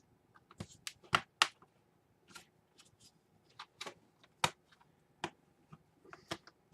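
Plastic push tabs of a Dell Inspiron 11 laptop's case snapping loose as a flathead screwdriver pries the panel off: a dozen or so irregular sharp clicks and snaps.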